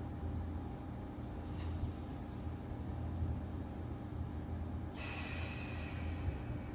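Steady low hum of background room noise, with a brief faint rustle about one and a half seconds in and a hiss that starts suddenly about five seconds in.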